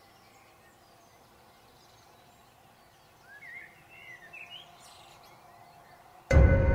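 Faint outdoor ambience with a few short bird chirps about three to four and a half seconds in. Near the end a loud music chord of steady held tones cuts in suddenly.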